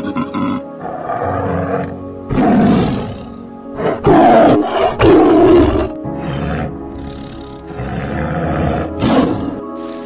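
A series of deep, rough animal roars, about six calls of under a second each, loudest about four and five seconds in, over soft background piano music.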